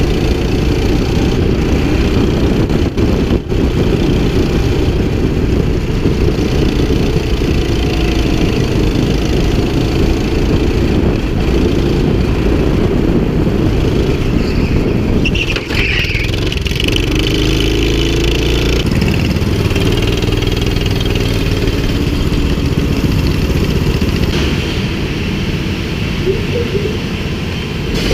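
Go-kart engine running at speed right behind the seat, its pitch rising and falling as the driver lifts off and accelerates through corners, easing off near the end.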